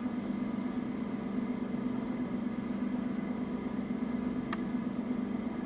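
ERN 150 coil winding machine running slowly at about 25 RPM as it winds a prototype coil: a steady low hum. A single brief tick sounds about four and a half seconds in.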